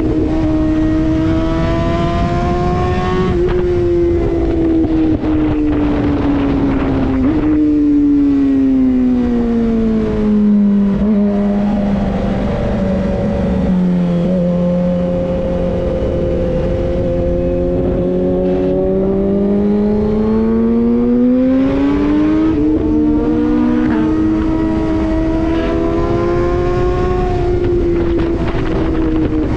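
Suzuki GSX-R superbike's inline-four engine under way. The revs ease down over the first ten seconds or so, hold low for several seconds, then climb smoothly back up in the second half and level off.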